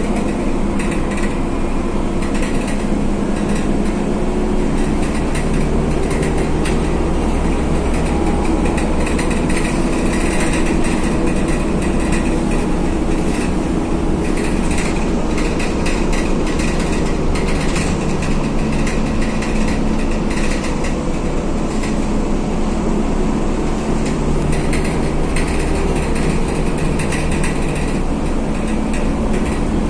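Inside a Mercedes-Benz O405GN2 articulated city bus on the move: its diesel engine drones steadily, the pitch shifting a little now and then, while the cabin fittings rattle and click.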